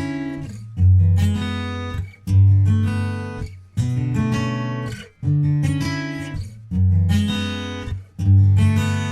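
Acoustic guitar music: a plucked, strummed phrase struck about every second and a half, each strong low note ringing and fading before the next.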